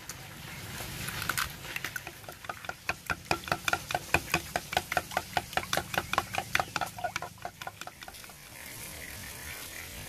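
Raw eggs being beaten in a wooden bowl with wooden sticks: a quick, even clicking of the sticks against the bowl, about five or six strokes a second. It builds about a second in and stops about eight seconds in.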